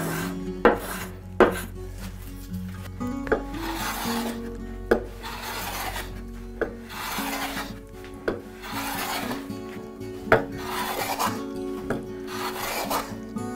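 Hand smoothing plane, a No. 3, taking fine finishing passes on a wooden bench top: repeated hissing strokes of the blade cutting shavings, about one a second, many starting with a sharp tap as the plane lands on the wood.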